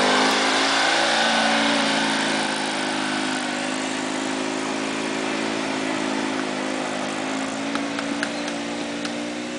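Air-cooled flat-twin engines of Citroën 2CV-based off-road cars running under load. One passes close at the start, where the sound is loudest, and the engine note then holds steady as another climbs a slope. A few short knocks come near the end.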